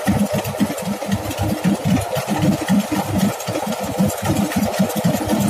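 Rice combine harvester's engine running steadily under load while it cuts and threshes standing rice, a loud continuous rumble with a rapid uneven pulsing in the low end.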